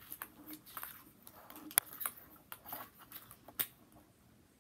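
Foil wrappers of Pokémon booster packs crinkling and rustling as they are picked through by hand, with scattered small clicks and two sharper ones.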